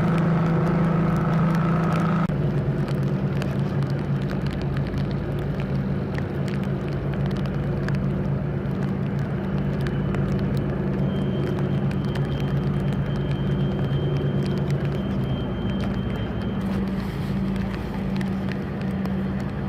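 Tugboat diesel engines running under load with a steady low hum, the note shifting about two seconds in, over a scatter of fine clicks.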